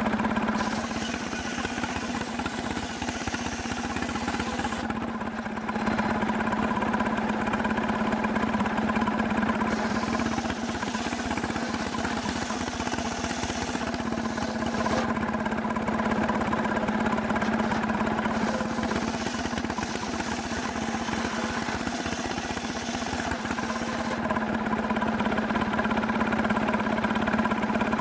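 Stihl chainsaw engine running at a high, steady speed in a chainsaw mill, sawing through a hard cemara log. The engine note holds steady while the higher cutting hiss rises and falls in stretches.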